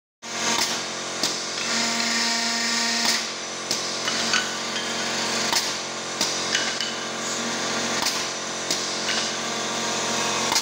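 Automatic beehive frame drilling machine running: its drill motors hum steadily, with sharp clacks every half second to second and a half as the frame bars are fed through and drilled.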